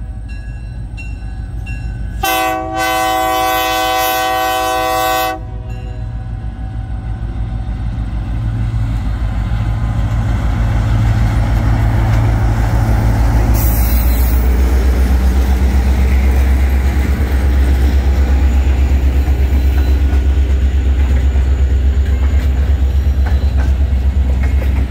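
Great Lakes Central Railroad diesel freight train. About two seconds in, its locomotive horn sounds one long multi-note blast, with a brief break near its start, warning of the road crossing. The diesel locomotive's engine rumble then builds as it nears and passes, followed by the steady rhythmic clatter of freight cars rolling by on the rails.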